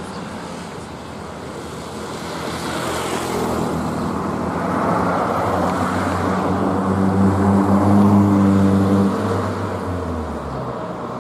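A bus with a growling exhaust passing close by: its engine note builds over several seconds, peaks about eight seconds in, then drops in pitch and fades as it goes away, over steady road noise.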